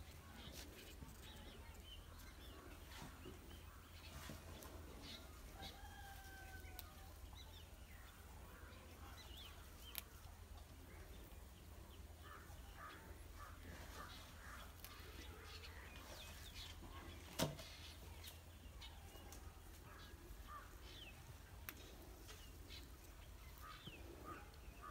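Faint, scattered bird chirps and calls over a low steady hum, with a sharp click about two-thirds of the way through.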